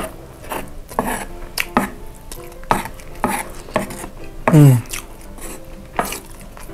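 A wooden rice spoon scraping and tapping against a wooden board as it scoops up fried rice, in a string of quick scrapes and knocks. About four and a half seconds in comes a short voice-like sound that falls in pitch, the loudest moment.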